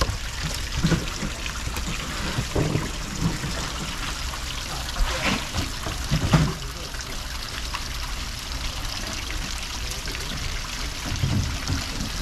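Water running and trickling steadily, with a few short knocks and thuds.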